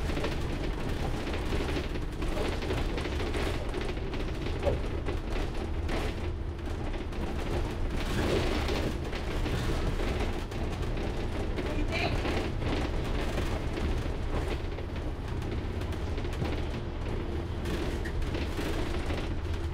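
Bus running on the road, heard from inside: a steady low rumble of engine and road noise, with faint voices of passengers now and then.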